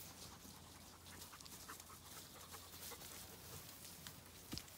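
Faint breathing and sniffing of a Zwartbles sheep close to the microphone as it noses at a hand, with small scattered rustling ticks and one sharper click near the end.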